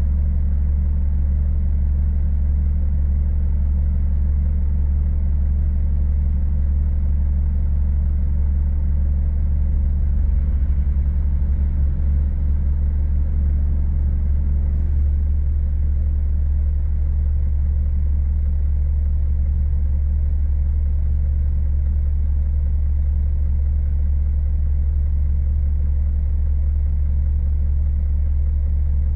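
Heavy diesel truck engine running with a steady, deep drone.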